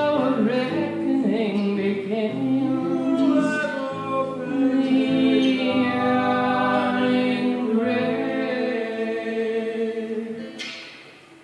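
Closing bars of a slow song performed live: sustained sung notes over low held accompaniment notes, fading away near the end.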